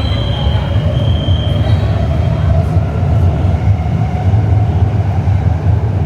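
Guangzhou Metro Line 22 train running on the line: a steady, loud low rumble with a hum over it. A high whine is heard briefly at the start.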